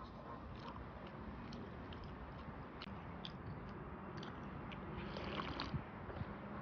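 Faint eating and drinking mouth sounds: scattered small smacks and clicks of chewing, then sipping from a small glass bowl, over steady low background noise.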